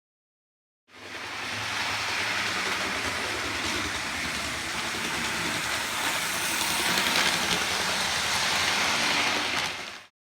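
Hornby model train running on its track: a steady whir from the small electric motor and a rattle of wheels on the rails. It starts abruptly about a second in and cuts off just before the end.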